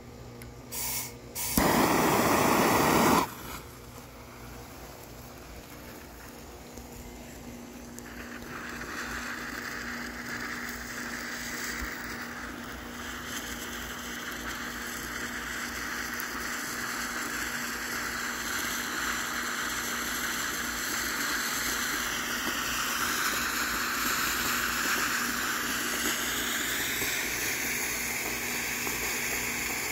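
Vintage Longhorn Golden Shower cone fountain firework burning: a steady spraying hiss that starts about eight seconds in and grows gradually louder as the spark fountain builds. Near the start, a short loud rushing burst lasting about a second and a half.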